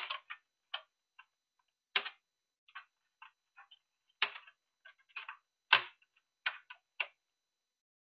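About ten light, irregular clicks and knocks as a WD Purple hard drive and its cables are handled and shifted into position on the floor of a metal NVR case.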